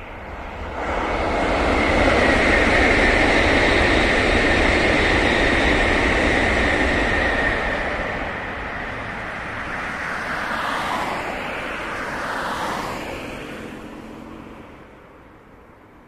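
Tokaido Shinkansen bullet trains passing at speed on the elevated viaduct. A rushing roar builds about a second in and holds loud with a high whine for several seconds, then eases. A smaller swell with a falling pitch comes near the end before the sound fades away.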